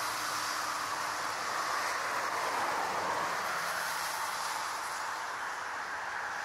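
Airbus A380 airliner touching down and rolling out on a wet runway: a steady rushing noise of its jet engines and tyre spray, with no distinct tone or sudden knocks.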